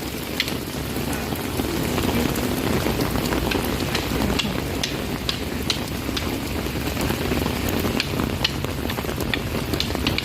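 Steady rain, an even hiss of falling water with scattered sharp ticks of drops.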